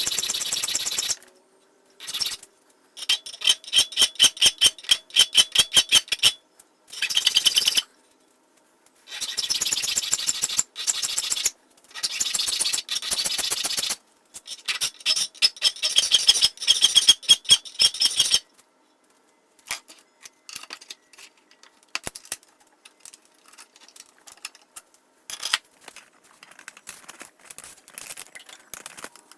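Hand file rasping on the steel of a cleaver made from a mower blade, in runs of quick, even strokes broken by short pauses. After about two-thirds of the way through, only faint, scattered strokes remain.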